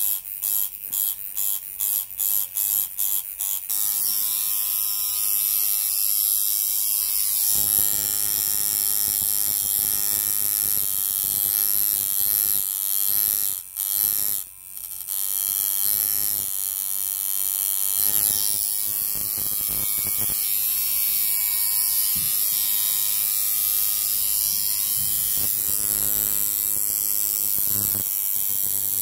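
Coil tattoo machine buzzing as it works ink into the skin of the face. For the first few seconds it starts and stops in quick short bursts, then it buzzes steadily, with one brief stop about halfway through.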